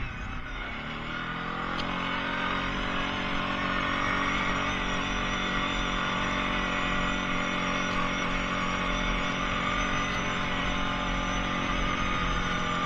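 Kawasaki Prairie ATV engine picking up revs over about the first two seconds, then running at a steady pitch.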